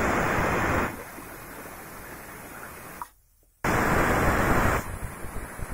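Stovetop pressure cooker letting off steam at full pressure: two loud hissing whistles, about three and a half seconds apart, with a softer steady hiss of escaping steam between and after them.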